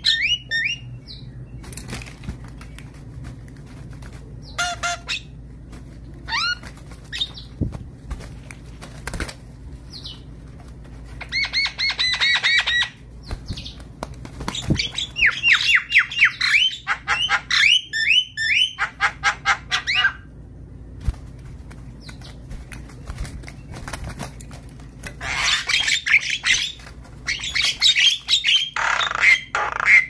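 Javan mynas calling in several loud bursts of quick repeated chattering notes and harsh squawks, with quieter gaps between.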